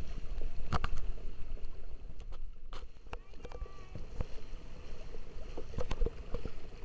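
Water splashing and sloshing around an inflatable kayak on choppy sea, with scattered sharp knocks and splashes. Wind rumbles on the microphone underneath.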